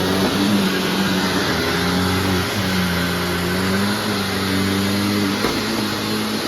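Hoover WindTunnel Self-Propelled Ultra upright vacuum (U6430-900) running at full power, a loud steady motor hum whose pitch wavers slightly as it is pushed along vacuuming.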